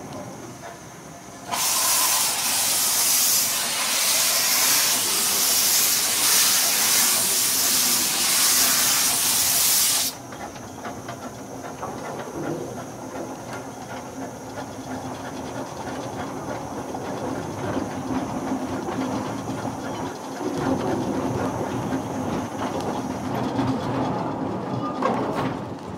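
Small narrow-gauge steam locomotive letting off a loud hiss of steam for about eight seconds that cuts off suddenly, then a quieter, steady mechanical clatter from the engine.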